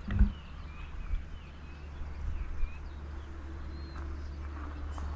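Small birds chirping: a string of short, high, quick calls over a low steady rumble.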